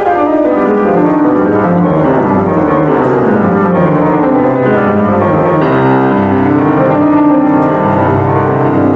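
Romantic orchestral film-score music with piano, played steadily with no speech.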